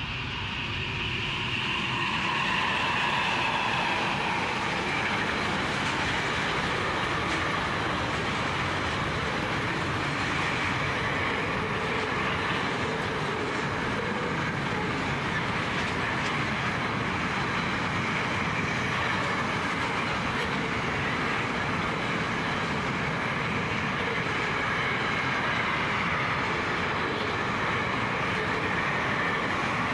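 Pacific National NR-class diesel locomotives pass, their engine note rising to full loudness in the first few seconds. A long container freight train then rolls steadily by, its wagon wheels clattering on the rail joints.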